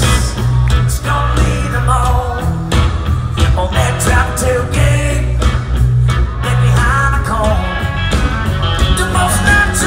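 Live country rock band playing loud: electric guitar over drums and bass, with singing in the mix, heard from within the crowd with a heavy, boomy low end.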